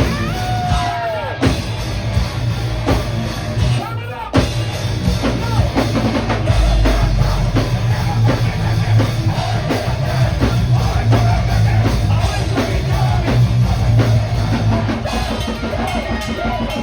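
Live heavy metal band playing, with a full drum kit driving a dense, loud wall of sound; the band stops briefly about four seconds in and crashes back in.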